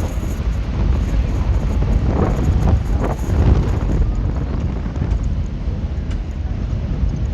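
Wind buffeting the microphone over the steady low rumble of a river ferry's engine.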